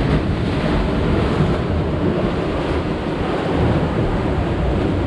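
Seawater washing and surging through the gaps between concrete breakwater tetrapods, a steady rushing noise, with wind rumbling on the microphone.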